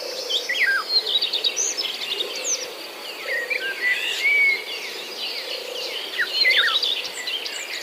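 Several birds chirping and calling in short whistled notes, some rising and some falling, over a steady high-pitched insect drone.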